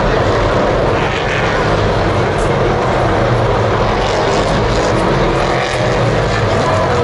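Steady drone of race-car engines running on the circuit at a distance.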